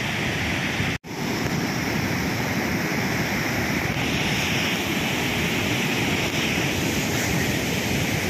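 Heavy surf pounding on the shore together with brown floodwater rushing over a rock ledge into the sea, a steady roar of water with wind buffeting the microphone. The sound breaks off for an instant about a second in.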